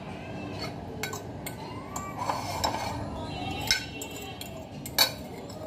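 Metal utensil stirring a chicken, cheese and vegetable sandwich filling in a glass dish, clinking and scraping against the glass in scattered strokes, the sharpest clink about five seconds in.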